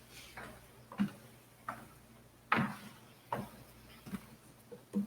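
A series of soft, irregular knocks and clicks, about eight in all, spaced under a second apart, over a faint steady hum.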